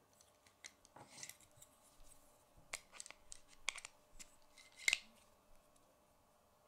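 Plastic K'nex pieces clicking and rubbing as a gear is pushed onto a rod and fitted into the frame by hand: a string of small sharp clicks and short scrapes, the loudest click a little before five seconds in.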